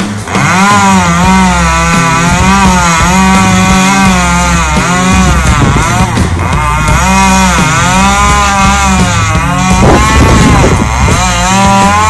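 Stihl MS 193 T top-handle chainsaw running, its small two-stroke engine rising and falling in pitch over and over as it is throttled and loaded in the cut.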